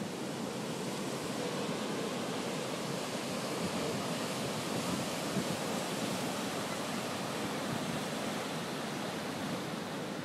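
Large south-swell surf breaking and whitewater washing in against a rocky shoreline: a steady rush of noise that rises and falls slightly.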